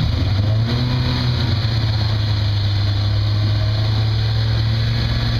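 Toyota rock-crawling buggy's engine running steadily at low revs as the buggy crawls over rock, a steady low engine note.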